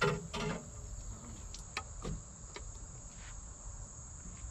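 Insects droning steadily in one high, even pitch, with a few short knocks, the loudest two in the first half second.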